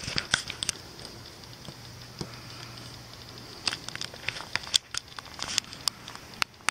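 Handling noise on a handheld camera: irregular small clicks and crackles as fingers shift their grip on the body, over a faint steady low hum.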